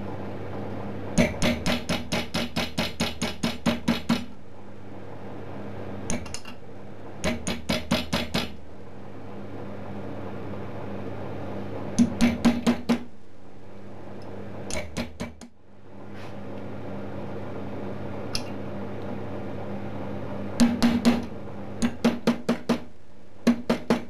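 Steel bolt clicking against the coils of a wire door-handle spring held in pliers in a vise: sharp metallic clicks in quick runs of about four a second, several runs with pauses between, over a steady low hum.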